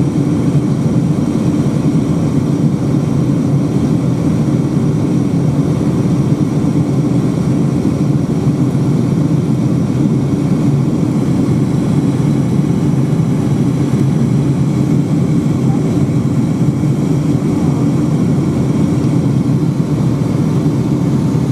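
Steady cabin noise inside a Boeing 757-200 in flight: engine and airflow drone heard through the fuselage, an even low rumble that does not change.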